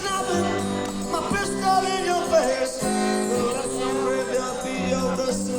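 Live acoustic blues played without singing, in an instrumental passage of steady held and bending notes.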